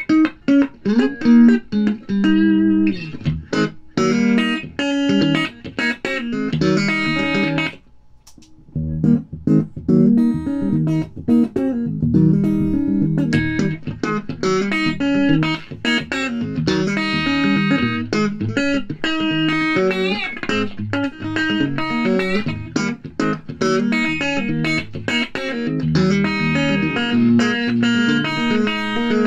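Electric guitar played through a Skullytone FX Type R sustain compressor pedal: quick picked single-note runs and chords, with a brief near-pause about eight seconds in.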